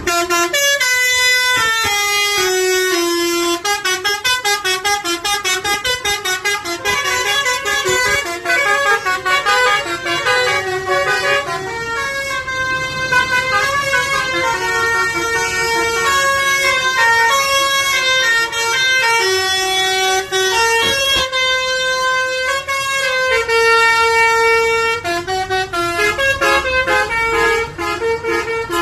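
Basuri 'telolet' bus horn playing a fast tune of short notes that step up and down in pitch, loud and without a break.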